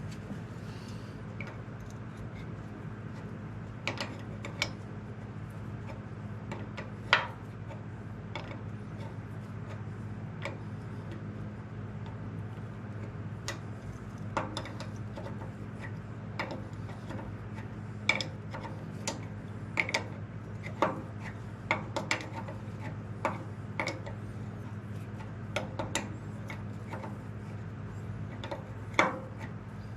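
Irregular metallic clicks and clinks of a wrench and hydraulic hose fitting as the hose is threaded back into the lift cylinder, over a steady low hum.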